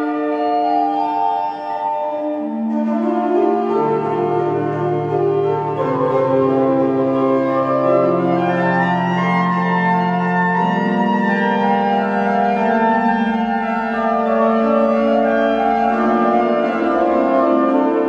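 Rieger pipe organ playing slow, sustained chords. About three seconds in the sound fills out, with brighter upper tones and then lower bass notes joining the held chords.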